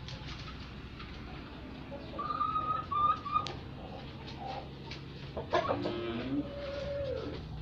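Brahma chickens clucking and calling: a run of short high calls about two seconds in, then a longer, lower call from about five and a half seconds that falls in pitch at its end.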